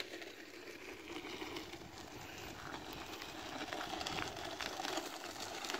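Small wheels rolling over a gravel path, with a steady crunching crackle and footsteps, slowly growing louder toward the end.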